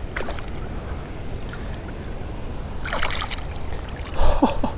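River water trickling, with two sharp splashes, about three seconds apart, as a hooked smallmouth bass is landed. A short gasp near the end.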